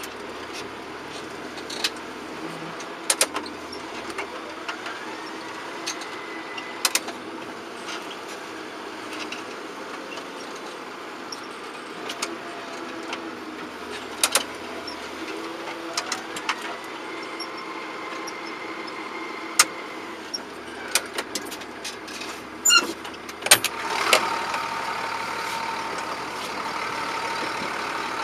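John Deere 7710 tractor's diesel engine running steadily while ploughing, with scattered sharp knocks and clicks throughout. A whine rises twice, and the sound grows louder with a steady high tone from about three-quarters of the way in.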